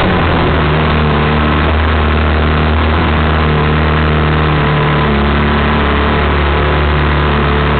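Yamaha R6's inline-four engine running at low, fairly steady revs as the bike rolls slowly at pit-lane speed, heard close up from a camera mounted on the bike.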